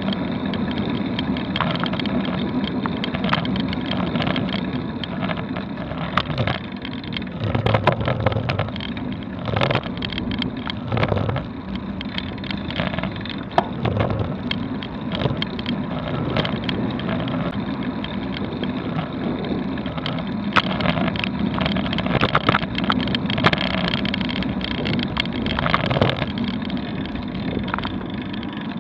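Ride noise picked up by an action camera mounted on a slowly climbing bicycle: a steady rumble of tyres and nearby street traffic, broken by frequent irregular rattles and clicks from the bike and camera mount.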